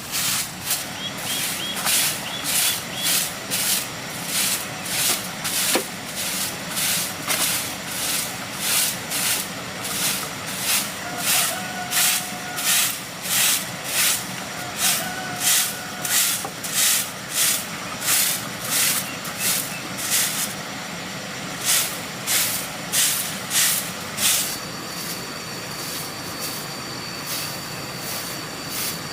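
Rhythmic swishing strokes, a little more than one a second, that stop about 24 seconds in.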